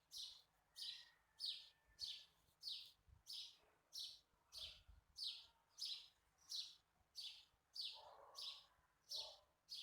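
A bird chirping steadily, short high-pitched chirps about two a second, each falling in pitch.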